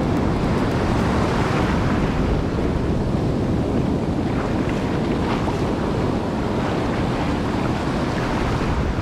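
Ocean surf breaking and foamy shore-break water rushing in right at the microphone, a steady loud rush, with wind buffeting the microphone.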